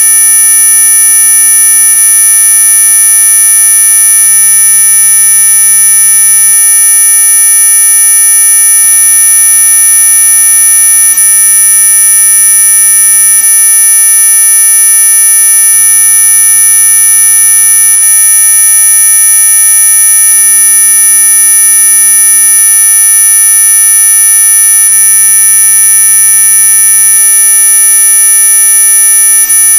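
Synthetic mosquito-repellent tone: a loud, unchanging electronic whine made of many steady tones at once, the strongest very high-pitched.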